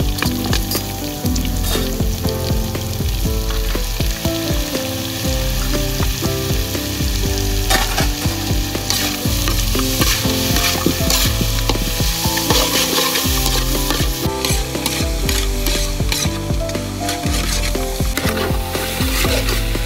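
Chopped quail pieces sizzling in hot oil in a large steel wok while being stir-fried, with a metal spatula scraping and clicking against the pan many times.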